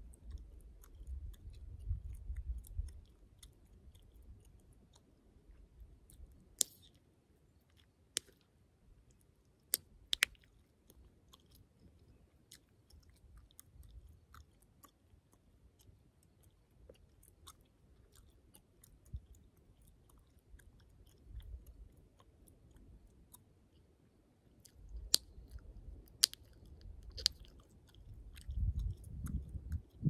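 Close-up gum chewing, the mouth working the gum softly, with sharp gum pops now and then: a few in the middle and three close together near the end.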